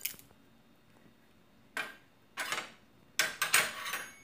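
A metal spoon scraping and clinking against a small dish in a few short bursts, the first a little under two seconds in, with quiet between them.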